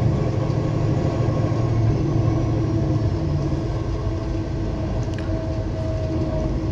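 Car engine running with a steady low hum, heard from inside the cabin.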